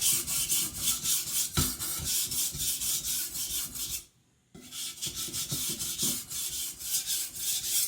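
Steel chopper blade being stroked back and forth on a coarse JNS 300 whetstone, a quick run of gritty scraping strokes with a brief pause about halfway through. The stone is thinning the steel just behind the edge at a raised angle of about 15 degrees.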